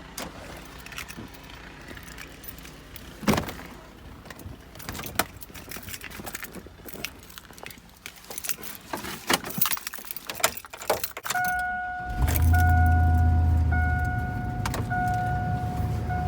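Keys jangling and scattered clicks and knocks of someone getting into a pickup truck. About eleven seconds in, a vehicle warning chime starts beeping about once a second, and a second later the truck's engine starts and keeps running under the chime.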